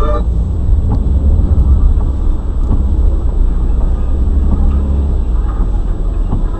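Steady low rumble of a car's road and engine noise, picked up by a dashcam's microphone inside the cabin, with a few faint irregular ticks.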